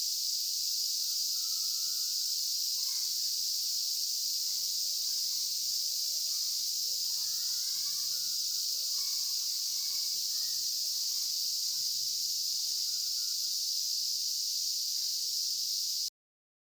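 Steady, high-pitched chorus of crickets and other insects, with faint distant voices underneath. The sound cuts off suddenly near the end.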